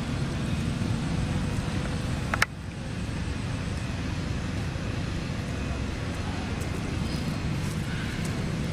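Steady low outdoor background rumble with no monkey calls, broken by a single sharp click about two and a half seconds in, after which the level dips for a moment.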